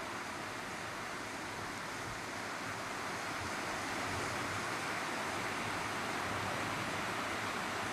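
Belvedere cascade fountain: water spilling down its stepped basins and its jets splashing, a steady rushing that grows a little louder about halfway through.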